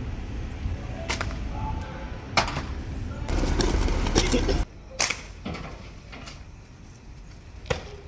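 Several sharp snaps, a second or more apart, over outdoor street noise, with a louder rustling, noisy stretch about three to four and a half seconds in.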